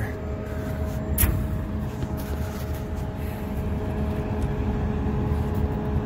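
Steady hum and low rumble of a large Carrier rooftop air-conditioning unit running, with one sharp click about a second in.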